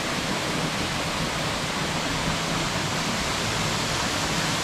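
Steady rush of water from a waterfall: an even, unbroken roar of falling water.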